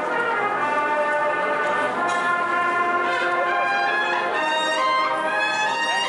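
Processional brass band playing a Holy Week march, holding long sustained chords.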